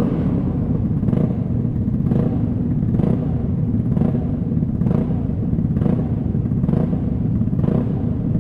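Vespa scooter's single-cylinder four-stroke engine running through a Prospeed aftermarket exhaust with its dB killer baffle removed: a loud, deep rumble with a sharp surge about once a second, the exhaust spitting flames.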